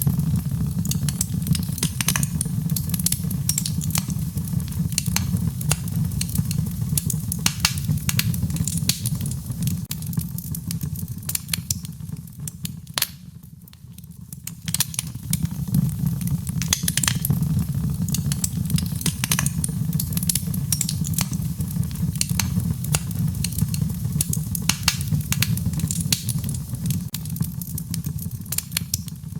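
Wood fire crackling in a fireplace: frequent sharp pops and snaps over a steady low rumble of the flames, quieter for a moment about halfway through.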